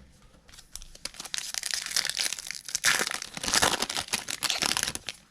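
A Topps baseball card pack's foil wrapper crinkling and tearing as it is ripped open, loudest about three seconds in.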